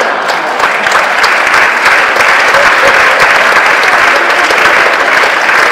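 Audience applauding steadily, a dense, loud clatter of many hands clapping.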